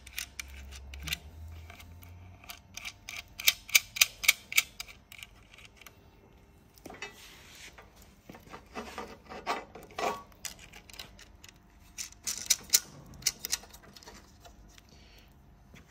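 Plastic LED tail light and its mounting studs handled by hand and fitted against a steel bracket: quick runs of light clicks and taps, with rustling handling noise in the middle.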